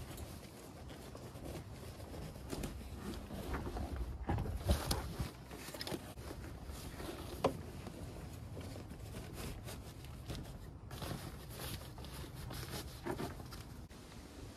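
Canvas seat cover being pulled and fitted over a car seat: fabric rustling and handling noises, with a few soft knocks about four and a half seconds in and one sharper knock about seven and a half seconds in.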